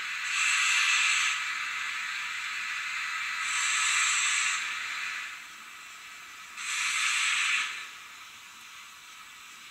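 Digital sound decoder of a Roco HO-scale class 52 steam locomotive model playing steam hiss: a hiss of about a second, three times, roughly three seconds apart, over a steadier background hiss that fades out about halfway.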